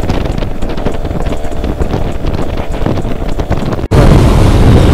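Wind buffeting the microphone of a moving motorcycle, with the bike running underneath. About four seconds in it breaks off abruptly and comes back louder.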